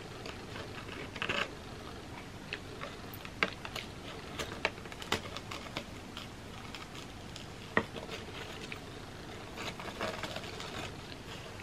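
Scattered small clicks and crackles of a graham cracker being scraped and pressed through a crumbly, hardened brownie batter dip in a glass dish, with a few sharper clicks along the way.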